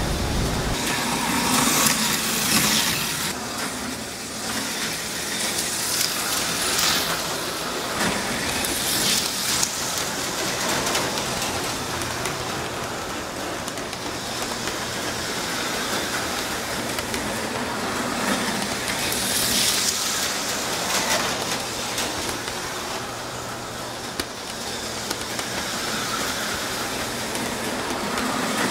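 HO-scale Auto World Thunderjet slot cars whizzing past on the track, each pass a high whirring swell that rises and fades over about a second, several times, over a steady hiss and low hum.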